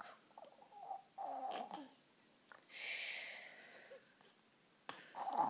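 A toddler faking snores: a snorting breath with a rasping voice in it about a second in, a long breathy snore about a second later, and another voiced snort starting near the end.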